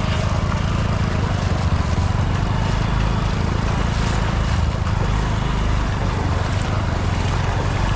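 Motorcycle engine running steadily at idle, with water splashing and wind on the microphone.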